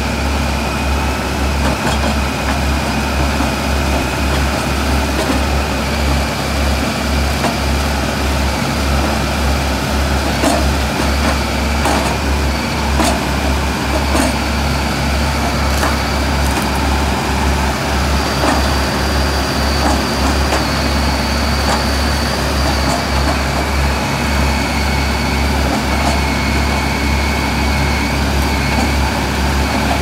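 Kobelco TLK 860 backhoe loader's diesel engine running steadily while the backhoe boom and bucket are worked, with a steady high whine over the engine. A few sharp clicks or knocks come between about ten and sixteen seconds in.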